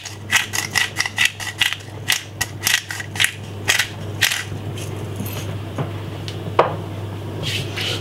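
Hand-turned pepper mill grinding black pepper, a rapid run of dry crunching clicks at about three a second that stops about four and a half seconds in, over a steady low hum.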